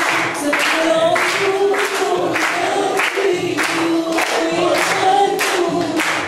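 A group of people singing together in unison while clapping their hands in time, about two claps a second.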